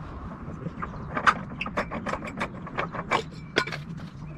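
A run of irregular, sharp mechanical clicks, several a second, over a steady low hum.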